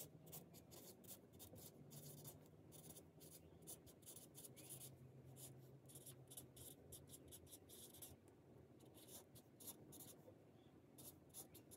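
Faint strokes of a dry-erase marker writing on a tabletop dry-erase easel pad: runs of short scratchy strokes as the words are written, with brief pauses between them.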